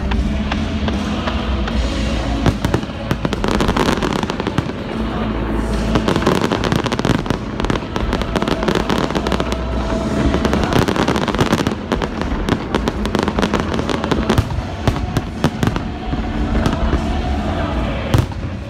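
Aerial fireworks shells bursting, with dense crackling from the falling stars, over steady music playing along with the display.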